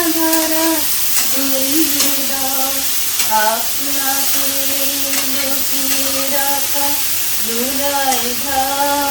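Bottle gourd frying in mustard oil in a pan: a steady sizzle, with a slow melody of long held notes over it.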